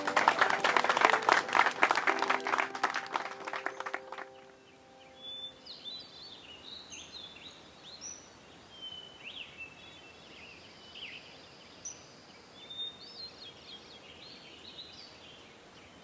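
Applause with background music, fading out over the first four seconds. Birds then chirp and call on and off through the rest.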